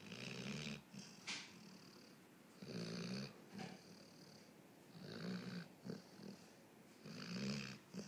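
A dog snoring in its sleep: four rough snores, each under a second long, coming about two and a half seconds apart, with a brief click between the first two.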